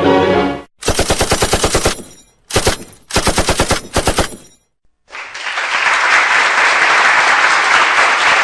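Machine gun firing three rapid bursts, the first and last over a second long, the middle one short. After a brief silence a loud, steady hiss-like noise begins and continues.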